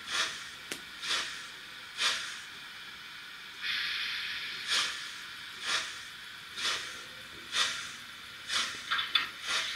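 Sound decoder of a Trix 22960 BR 96 Mallet model steam locomotive playing slow steam exhaust chuffs, about one a second. A steady steam hiss joins about a third of the way in, and a few quick clicks come near the end.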